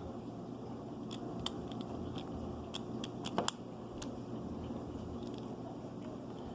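Light clicks and taps from a Master combination padlock being worked by hand with a thin tool pushed into it, about a dozen scattered clicks bunched about halfway through, over a steady low hum.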